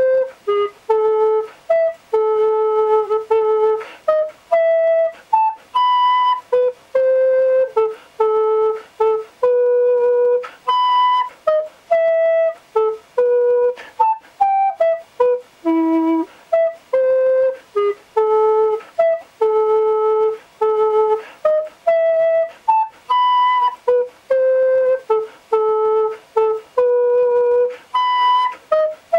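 Solo tenor recorder playing a melody in separate, detached notes with short gaps between them.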